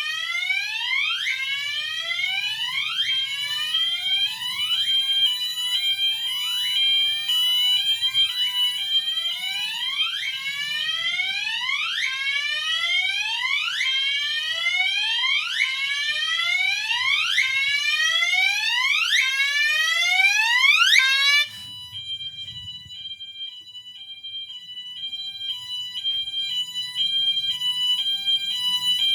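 Two multitone fire alarm horns sounding together. A Wheelock MT plays a slow whoop, a rising sweep repeated about every second and a half, which cuts off suddenly about 21 seconds in. The other horn keeps on with a stepped tone alternating between two pitches.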